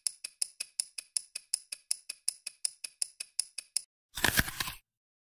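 Fast, even clock-ticking sound effect, about five identical ticks a second, that stops a little before four seconds in. A short noisy hit with a low rumble follows.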